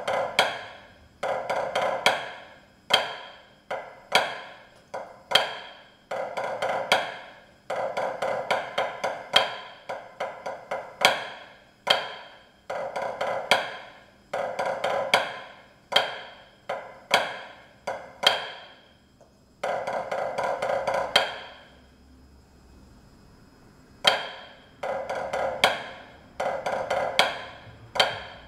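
Drumsticks playing a learner-level pipe band snare drum part on a practice pad: crisp, dry strokes in a steady march rhythm with short rolls between them. There is a pause of about two seconds about three-quarters of the way through.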